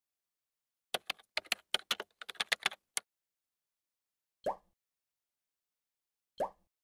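Keyboard typing sound effect: a quick run of about a dozen key clicks, then two single key taps about two seconds apart, as on-screen text is typed in.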